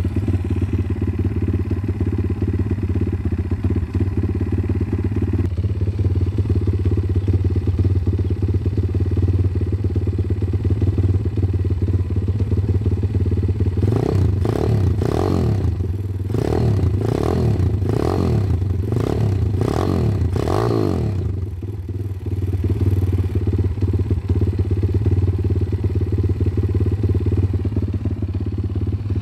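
WPB Beast 190 pit bike's 190cc single-cylinder four-stroke engine ("a junior thumper") idling steadily on its very first start, brand new and not yet run in. About halfway through, the throttle is blipped eight or so times in quick succession over about seven seconds, then the engine settles back to a steady idle.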